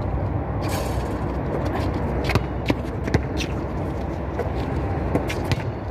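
A basketball bouncing on an outdoor concrete court and players' footsteps, a scatter of short sharp knocks at irregular intervals over a steady low background rumble.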